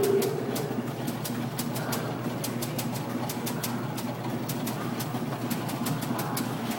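Astral Typewriter fortune-telling machine typing: irregular sharp clacks of the type striking, several a second, over a steady low hum.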